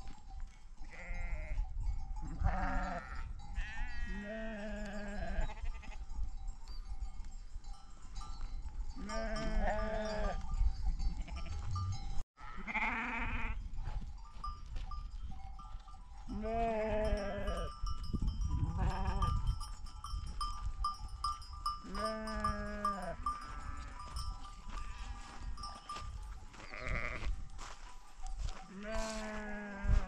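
Sheep bleating again and again, about one call every two or three seconds, some long and quavering.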